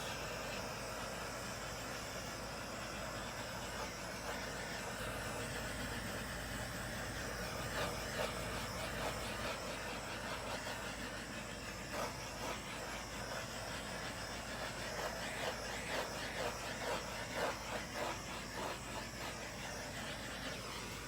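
Handheld butane torch hissing steadily as it is passed over wet acrylic paint to pop surface bubbles, with a flickering, uneven edge to the hiss as the flame moves.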